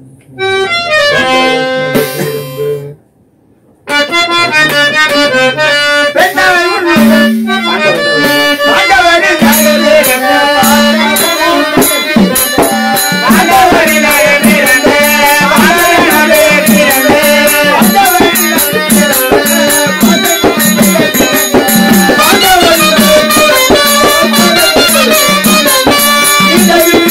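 Therukoothu folk-drama music: a short phrase of held reed notes, a brief break about three seconds in, then reed instruments playing a melody over a fast, steady metallic percussion beat.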